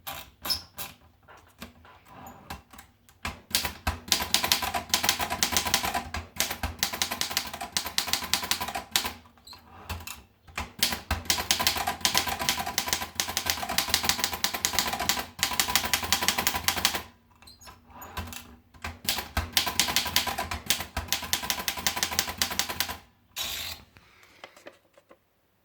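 Erika model 9 manual portable typewriter being typed on: runs of fast key strikes, each several seconds long, broken by short pauses with scattered single strokes. A short, harsher sound comes near the end.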